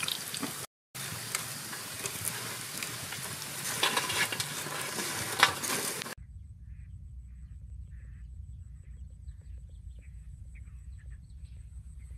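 Hot oil sizzling as a batch of small deep-fried sharp-nosed fish is lifted out in a wire spider strainer, with metal tongs clicking against the strainer. About six seconds in, it cuts to a quiet outdoor ambience of low wind rumble, faint chirps and a thin steady high tone.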